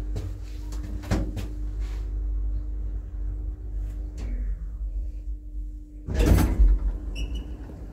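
A 1990 Doppelmayr passenger lift running with a steady hum and a couple of knocks. About six seconds in the hum cuts off with a loud clatter as the car stops and its doors start to move, followed by a short high beep.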